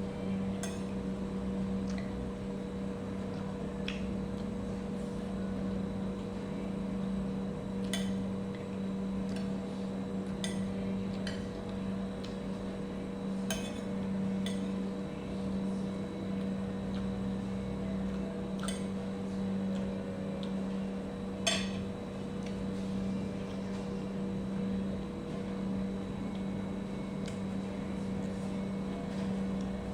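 Spoon and fork clinking now and then against a plate during eating, about a dozen light clicks, with one sharper clink a little after twenty seconds, over a steady low mechanical hum.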